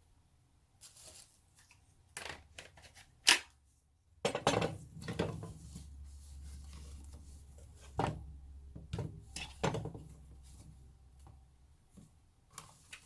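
Cordless impact wrenches being handled and set down on a hard surface: scattered light clicks and knocks, with one sharp knock about three seconds in.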